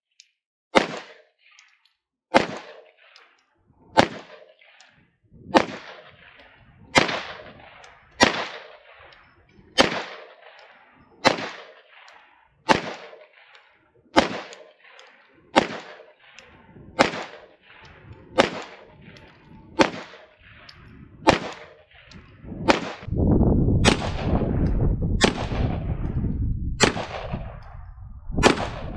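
Shadow Systems DR920 9mm pistol firing slow, deliberate single shots of Winchester white box ammunition, about one every second and a half, each shot a sharp crack with a short ringing tail. About two-thirds of the way through, a steady rushing noise sets in under the shots.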